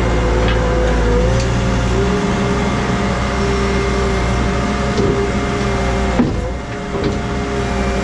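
Skid steer loader's engine running steadily, with a whine that shifts slightly in pitch, as its bucket scoops into a pile of sawdust; the sound dips briefly about six seconds in.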